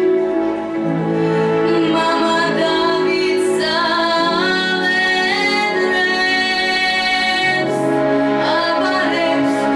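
A woman singing a slow song with orchestral accompaniment. Her voice comes in about two seconds in over held accompaniment chords, with long notes that waver in pitch.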